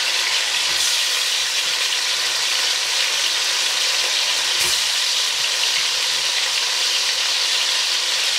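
Oxtail pieces searing in hot sunflower oil in a stainless steel pot, giving a steady frying sizzle. Two faint clicks come through, about a second in and about halfway.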